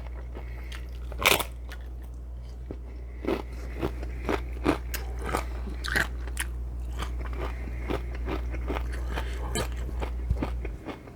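Close-miked eating of Mexican shrimp cocktail: chewing with many short, sharp mouth clicks, over a steady low hum that stops shortly before the end.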